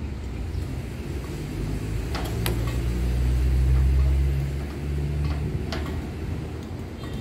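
A crane's engine running with a low, steady hum that swells from about two seconds in and drops back a little after five seconds. A few sharp knocks, about two seconds in and again near six seconds.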